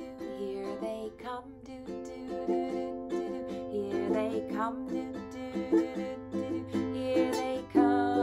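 Acoustic ukulele strumming chords in a steady rhythm, an instrumental break between verses of a children's song.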